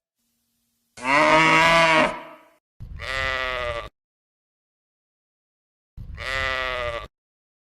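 Farm animal calls: a loud, lower call about a second in, then two shorter, identical bleats about three seconds apart, each cutting off abruptly.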